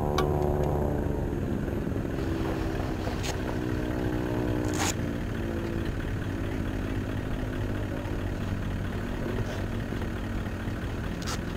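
An engine's steady drone that sags slightly in pitch and fades over the first few seconds, over a steady background rush, with a couple of sharp clicks.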